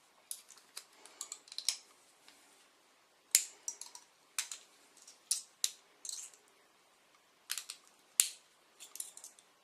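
Steel paperclip wire being twisted by hand into a tension wrench: irregular small metallic clicks and short scratches, some in quick clusters.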